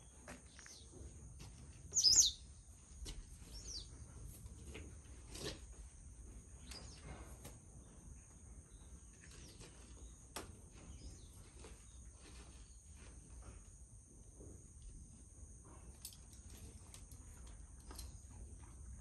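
Farmyard ambience: a bird gives one loud chirp about two seconds in, with a few fainter bird calls after it. Occasional soft knocks and a steady high-pitched hum run underneath.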